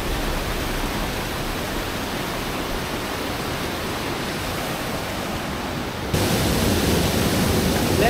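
Steady rush of a waterfall, an even hiss of falling water. About six seconds in it changes abruptly to a louder, fuller rush.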